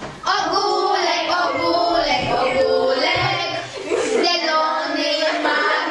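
Children singing a song, with music.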